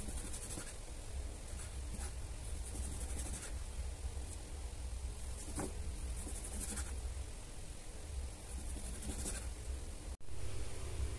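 Kitchen knife slicing raw beef on a wooden chopping board: faint scraping strokes of the blade through the meat and against the wood, every second or two, over a low steady hum.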